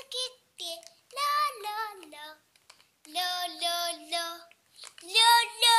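A young girl singing in several short phrases with brief pauses between, holding some notes steady.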